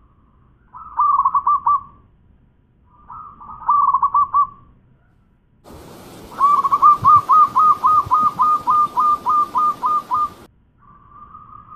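Zebra dove (perkutut) cooing. It gives two short rolling phrases, then a long phrase of about sixteen quick, evenly spaced coos, roughly four a second.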